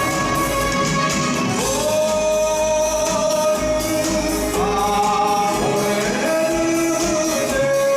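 Background music with a male voice singing long, held notes that slide up into pitch, over instrumental accompaniment.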